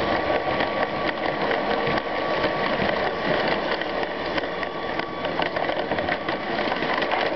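Lego train running on plastic track, picked up close from a camera riding on the train: the motor's gears whir and the plastic wheels clatter over the rails in a dense, steady rattle of small clicks, with a faint steady whine running through it. It cuts off suddenly right at the end as the train stops.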